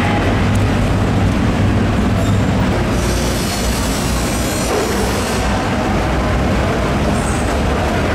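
Steady, loud, low machinery rumble with a constant hum. About three seconds in, a hiss rises over it for roughly two seconds, then fades.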